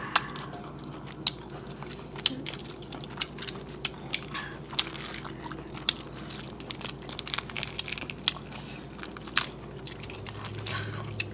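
Crawfish shells cracking and snapping as they are peeled and bitten, with chewing: irregular sharp cracks throughout.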